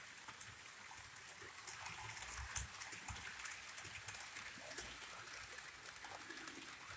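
Model trains rolling around the layout: a faint, steady whir of small wheels on the track with many light clicks scattered through it.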